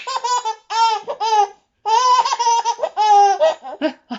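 Baby laughing in repeated high-pitched bursts, with a longer run of laughter in the middle that trails off into short fragments near the end.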